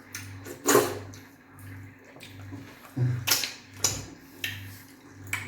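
Wet eating sounds of fufu with slimy okra soup: a few short slurps and smacks.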